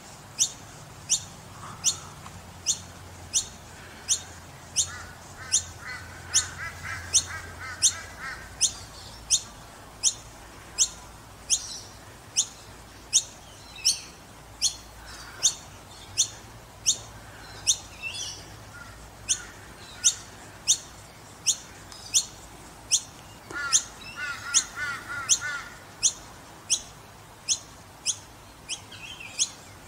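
Noisy miner fledglings calling: a sharp, high note falling steeply in pitch, repeated evenly about twice a second. Twice there is a spell of faster, lower chattering.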